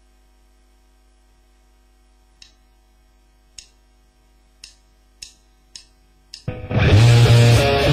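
A plugged-in electric guitar rig hums through a Marshall amplifier, with six sharp clicks that come closer together. About six and a half seconds in, loud electric guitar playing starts.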